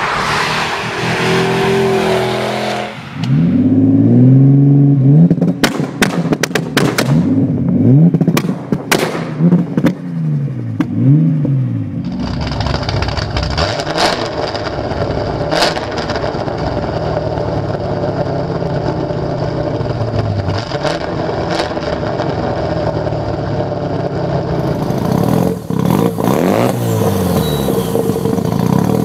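A run of modified car exhausts, one after another: an Audi RS6 accelerating away, then an engine revved hard and repeatedly with sharp cracks, then a 1989 Camaro IROC's LSX V8 with SLP Loudmouth exhaust running with small rises in revs, then a Mazda RX7's rotary engine with HKS Hi Power exhaust and test pipe, revved near the end.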